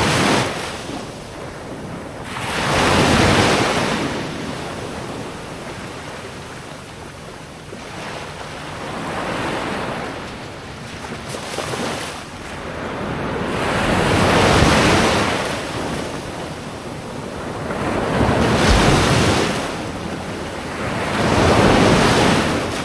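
Sea waves washing onto a rocky shore, each surge swelling and ebbing, one every three to five seconds.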